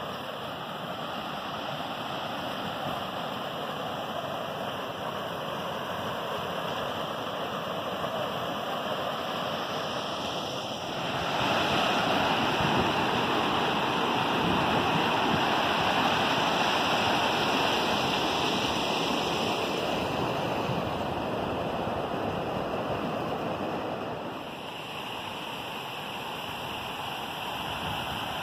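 River water rushing over rocky rapids, a steady roar of white water. It jumps louder about eleven seconds in and drops back about four seconds before the end.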